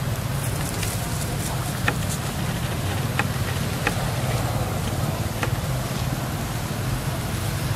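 Steady low engine hum, with a few short sharp clicks scattered through it.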